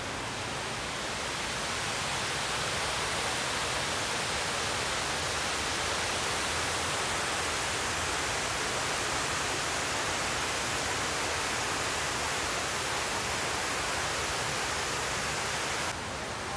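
A steady, even hiss-like rushing noise with no distinct sounds in it, swelling a little over the first two seconds and dropping off suddenly near the end.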